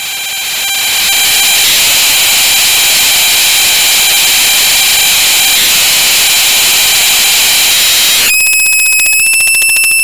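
Unprocessed output of a handmade all-tube noise source built around a 5823 vacuum tube: a dense hiss full of high whistling tones, fading in at the start. About eight seconds in, as its single knob is turned, it switches abruptly to a fast pulsing buzz with one steady high tone.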